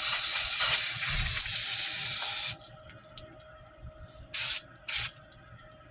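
Aerosol brake cleaner spraying onto a drum brake assembly: a long hiss that stops about two and a half seconds in, then two short squirts near the end.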